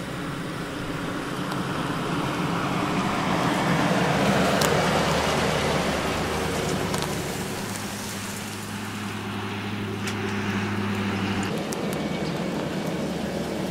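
Pickup truck engine running as the truck drives up and passes close by, loudest about four to five seconds in, then settling to a steady low hum; the engine note changes about eleven and a half seconds in.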